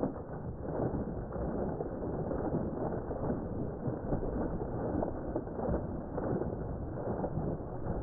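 A stream of water pouring into a pond and splashing on the surface, a steady, continuous rushing splash.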